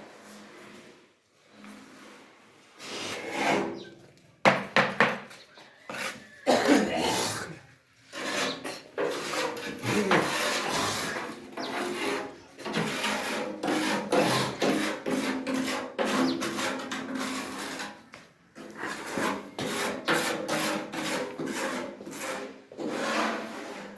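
Irregular rasping and rubbing strokes, like a rough surface being scraped or filed, with brief pauses between runs of strokes.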